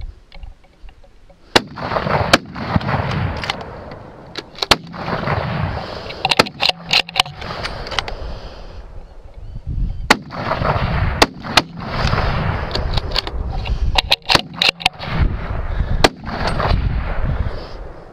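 Gunshots fired repeatedly at feral pigs, many sharp cracks, several in quick succession, with a loud rushing noise between them.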